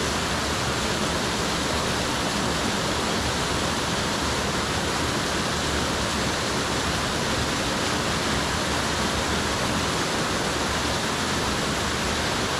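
Waterfall cascading over rocks close by: a steady, unbroken rush of falling water.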